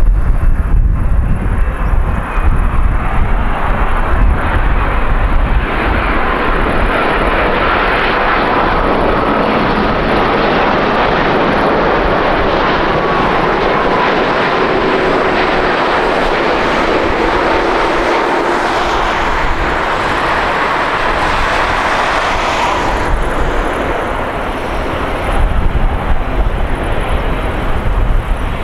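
Boeing 787-9 jet airliner on final approach, its engines a steady loud rush with a faint whine that builds early on and eases after about 23 seconds. Wind buffets the microphone with low rumbling gusts at the start and near the end.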